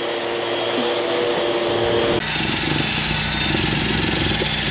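A steady machine hum, then, from about two seconds in, a Ryobi cordless drill with a wire brush spinning against a rusty metal pipe to scour off the rust, a steady grinding whir with a hiss.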